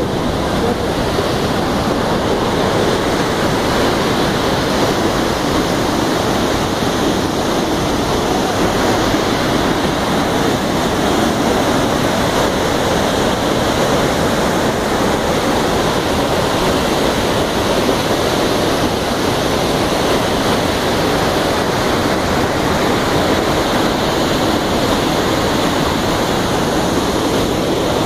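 Iguaçu Falls: a huge volume of brown floodwater plunging and crashing, heard as a loud, steady rush of water.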